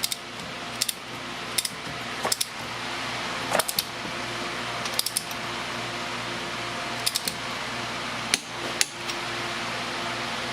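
Sharp metallic clicks from hand tools, single or a few together every second or two, as the top fill bolt of the rear differential is threaded in and tightened, over a steady low hum.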